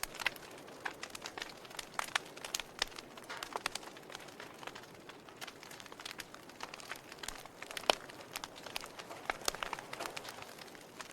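Wood logs burning in a fireplace, crackling: irregular sharp pops and snaps over a soft steady hiss, with the loudest snap about eight seconds in.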